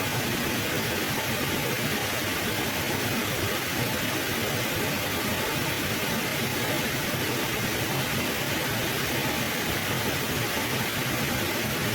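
Mountain river flowing over rocks: a steady, even rushing of water with no change in loudness.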